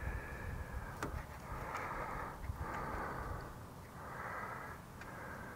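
A person breathing through the nose close to the microphone, a breath roughly every second, over a low rumble, with one sharp small click about a second in.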